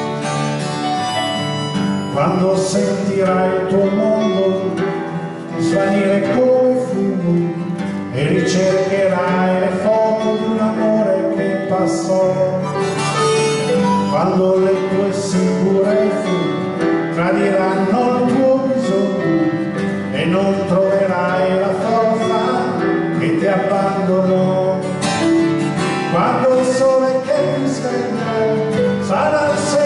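Live acoustic band playing a slow song: acoustic guitar and piano, with harmonica and a man singing.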